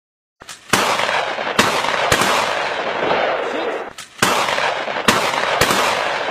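About six gunshots fired at uneven intervals during a wild boar hunt, over a loud continuous rushing noise.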